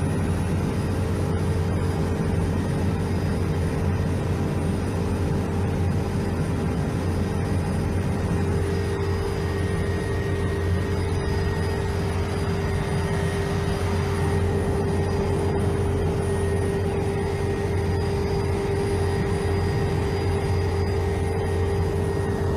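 Helicopter cabin noise: engine and rotor running with a steady low drone and a constant whining tone.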